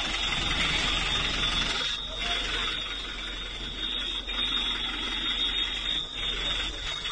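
A continuous high-pitched electronic alarm tone sounds steadily over a rough hiss of background noise.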